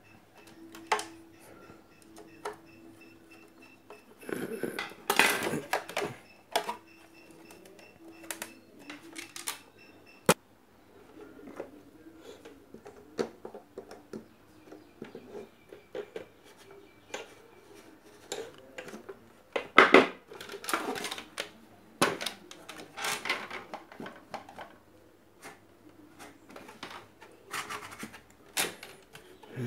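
Small metal parts and hand tools clinking, knocking and scraping on a work surface while a blender is being taken apart for repair. The irregular clicks come in busier clatters about five seconds in and again around twenty seconds in.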